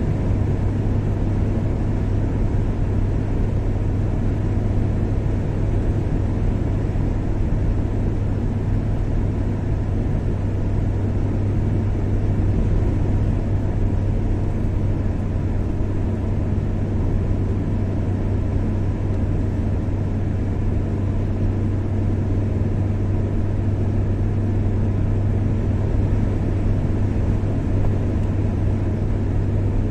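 Car driving at a steady speed on a highway: steady engine and road noise with a strong low hum.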